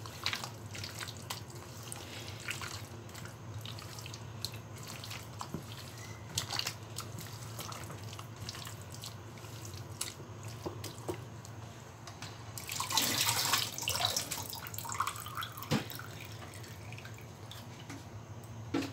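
Wet squelching and slapping of a hand kneading masala-coated raw chicken pieces in a steel bowl, over a steady low hum. About two-thirds of the way through there is a louder stretch of rushing noise lasting a couple of seconds.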